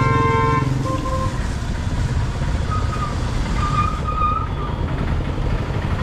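A vehicle horn sounds, cutting off less than a second in, with a short second toot right after. Steady low engine noise from passing traffic runs underneath.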